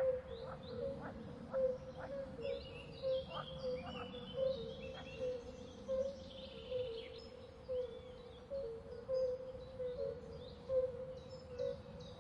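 Forest swamp ambience: a steady series of short low calls repeating about twice a second, with scattered higher bird chirps and whistles over a low background rumble.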